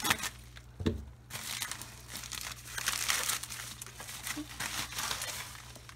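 Plastic mailer envelope being cut with scissors and then pulled and torn open by hand: a few sharp snips and a knock in the first second, then a long crinkling rustle of plastic.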